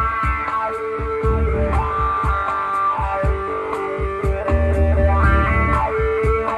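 Electric guitar, an Epiphone Les Paul Classic, playing a changing blues-rock line of single notes and chords over a steady drum beat and bass.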